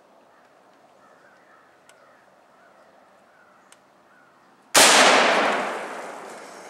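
A single gunshot about five seconds in, sudden and loud, its echo dying away over about two seconds: the shot that kills a whitetail deer.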